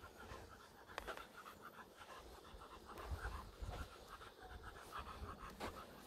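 English bulldog panting fast, about four breaths a second.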